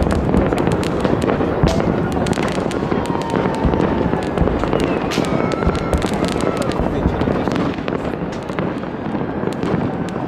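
Dense fireworks display: a continuous wash of bangs and crackling pops from many shells and firecrackers going off at once, with a few whistles gliding in pitch in the middle.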